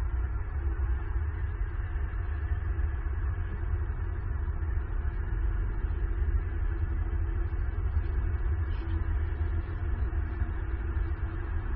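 Steady low rumble with an even hiss above it, no distinct calls or knocks.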